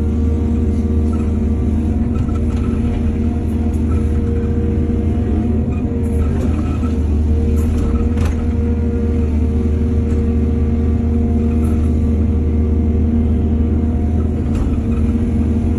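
Hydraulic excavator's diesel engine running steadily under load, with a low hum and a few short clicks and knocks scattered through it.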